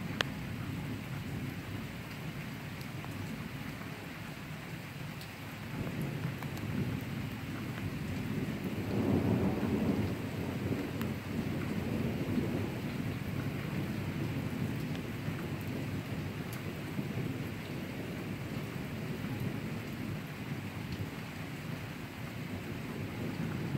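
Thunder rolling over steady rain. A low rumble builds about six seconds in, is loudest a few seconds later, then eases back under the rain's hiss.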